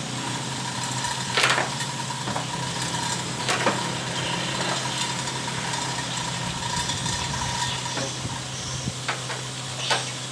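Metal knocks and clanks of workshop work on an engine being lifted into place: three sharp strikes, the first the loudest, over a steady low hum and a faint steady whine that stops near the end.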